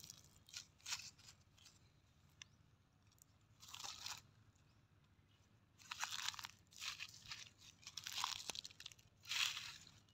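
Footsteps crunching through dry fallen leaves and twigs: a few scattered crunches at first, then a busier run of crunches from about six seconds in, the loudest near the end.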